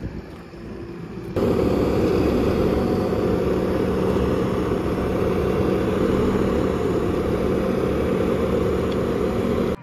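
Skid steer engine running steadily close by, with a low steady hum in it. It comes in suddenly about a second and a half in; before that there is only a quieter background.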